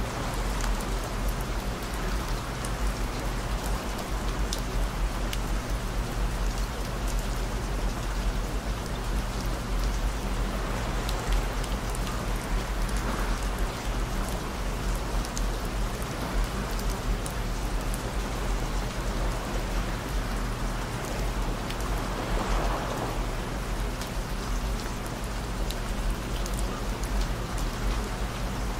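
Steady rain sound with scattered sharp drop clicks, layered over several low, steady, unchanging tones.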